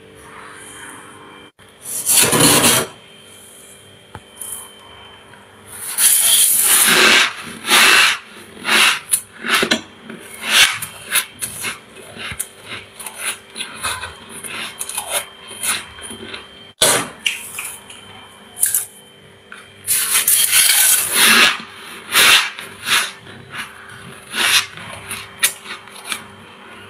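A metal utensil scraping thick frost off a freezer's walls in long rasping strokes, with many short crisp crunches in between as the frost is chewed.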